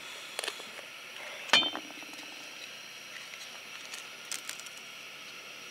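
Cooking containers and utensils being handled at a camp table: a few small clicks, then about a second and a half in a single sharp metallic clink with a brief ring, and a few faint clicks later, over a steady faint hiss.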